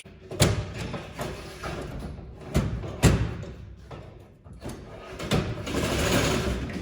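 Metal knocks and scraping as a new sickle knife section is slid into the cutter bar of a 630F Hydroflex grain head: several sharp clanks, and a longer scraping sound near the end.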